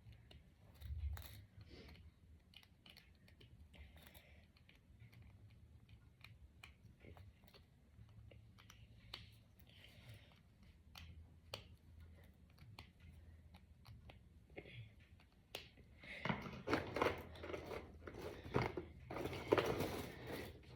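Small plastic Brain Flakes discs clicking as they are pushed together one by one, then a louder spell of rustling and clattering of the pieces for the last few seconds.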